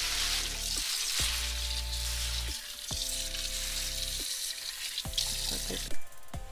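Water running into a stainless-steel sink as raw fish is rinsed and handled, a steady hiss that cuts off about six seconds in. Background music with a steady bass beat plays underneath.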